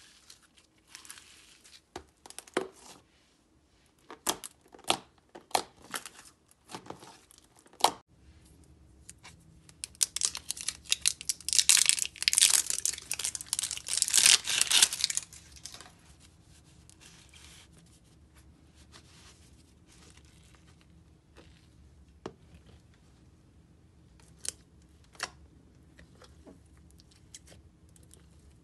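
Slime being stretched, squeezed and pulled apart by hand. Sharp pops and clicks at first, then several seconds of loud, dense crackling, then only a few soft pops.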